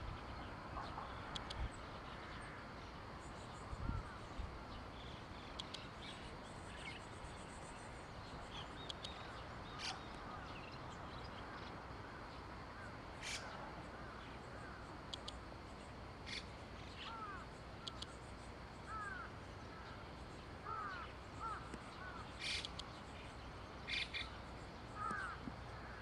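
Faint open-air ambience with scattered short bird calls, coming more often in the second half, and a few sharp high clicks.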